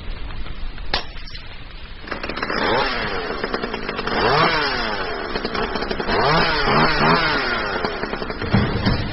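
An engine revving up and down several times, its pitch rising and falling, from about two seconds in. Near the end come a run of low, heavy pulses.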